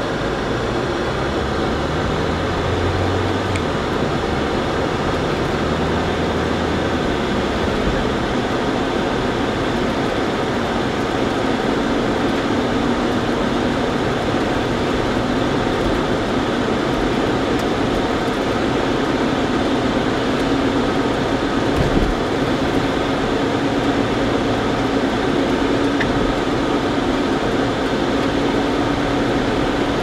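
Car interior noise while driving on a wet, slushy road: steady engine and tyre hiss heard inside the cabin as the car pulls away from a stop. A low hum slowly rises in pitch as it gathers speed, and there is a single thump about two-thirds of the way through.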